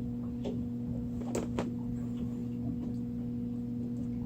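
Steady low mechanical hum, with a few light clicks from steel leader wire and swivels being handled, two of them close together about a second and a half in.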